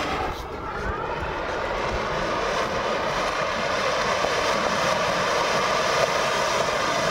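Cock Brand Rang Barat flower pot (anar) firework fountain burning, a steady rushing hiss of spraying sparks that grows slightly louder.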